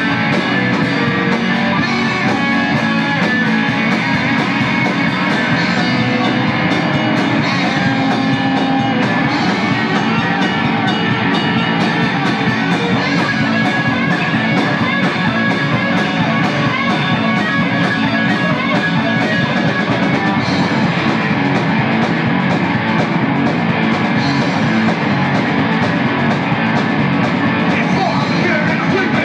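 Punk rock band playing electric guitar, bass guitar and drum kit, loud and unbroken.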